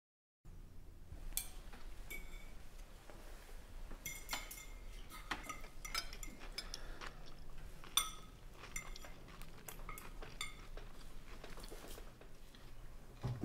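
Cutlery clinking against dinner plates: scattered light clinks and taps with short ringing, over a faint low hum of room tone.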